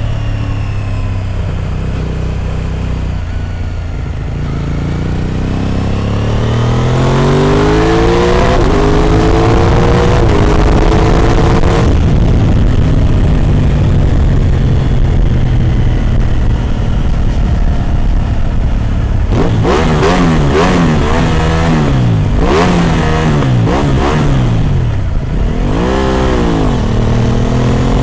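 Aprilia RS 660's 659 cc parallel-twin engine running through an SC Project exhaust on the road. The engine note falls at first, then climbs steadily as the bike accelerates, holds at a cruise, and near the end rises and falls several times in quick swings.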